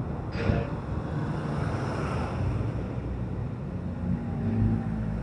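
Motorcycle engine running at low speed in traffic, with low wind rumble on the microphone. A brief sharper sound comes about half a second in.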